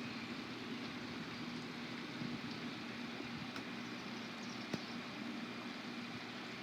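Steady rain falling, an even hiss, with a faint steady hum underneath and a few sharp ticks of drops, the clearest near the middle.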